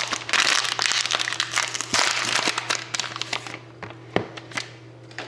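Card pack wrapper crinkling as it is opened and handled, for about three and a half seconds, followed by a few light clicks.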